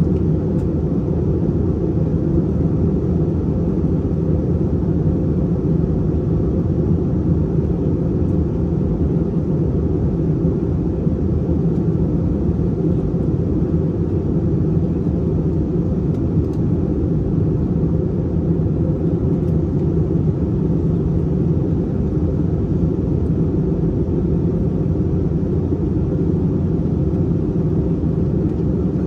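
Steady low roar in the passenger cabin of an Airbus A321-231 in flight: engine and airflow noise from its IAE V2500 turbofans, unchanging throughout.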